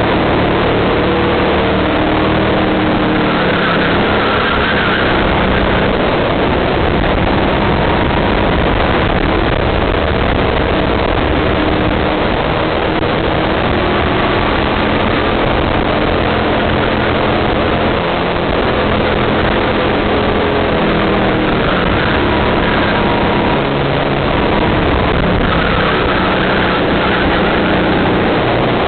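Go-kart engine running hard, recorded on board, its pitch rising and falling as the kart accelerates and lifts off through corners, under a constant rush of wind on the microphone.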